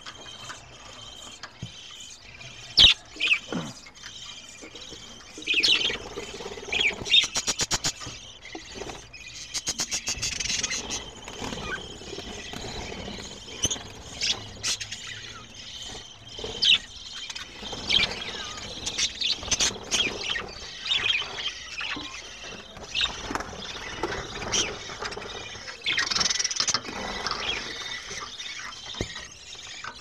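A flock of budgerigars chirping and chattering in short, sharp high calls scattered throughout, with a fast run of ticking notes about seven seconds in.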